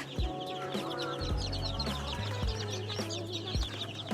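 A large flock of young chicks peeping continuously, many short falling cheeps overlapping. Background music with a steady beat about once a second plays under them.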